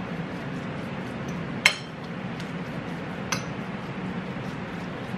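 Metal fork stirring and mashing food on a plate, with two sharp clinks of fork against plate, a loud one about one and a half seconds in and a fainter one about three seconds in.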